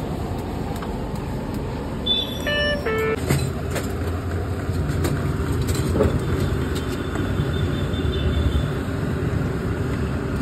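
Street traffic noise, with vehicle engines running in a steady low rumble. A brief high pitched tone sounds about two to three seconds in.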